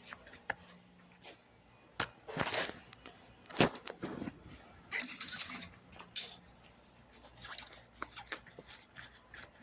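Handling noise: rustling and scattered clicks and knocks as things are picked up and moved about, with one sharper knock about three and a half seconds in.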